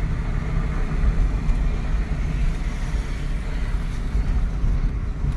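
In-cabin sound of a 1989 Hindustan Contessa 1.8 cruising on a highway: a steady low rumble of engine and road with an even hiss above it.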